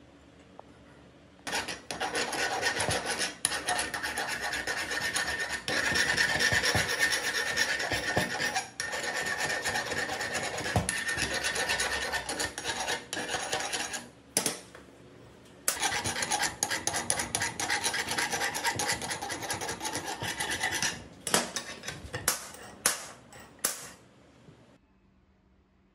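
Hand file rasping back and forth across the cast-metal base of a hydraulic jack in fast, continuous strokes. The filing stops for about a second near the middle, then resumes and ends in a few separate strokes.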